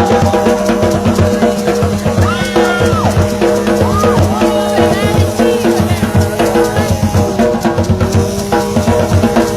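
Loud music with a drum-kit beat, steady throughout.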